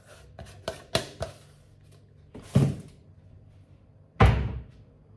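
A few light knocks and clicks, then two heavier thuds, the loudest and deepest about four seconds in.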